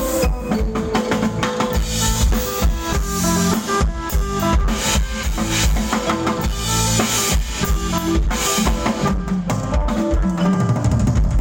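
Band music with a drum kit beat, bass drum and snare under pitched instrument melody.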